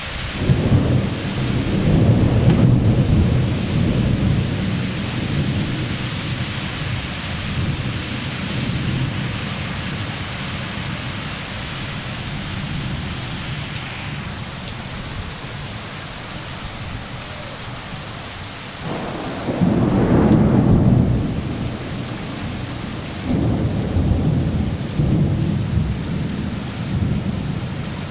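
Steady rain with rolling thunder: a long rumble in the first several seconds that slowly fades, then two more rumbles, one about two-thirds of the way through and one shortly after.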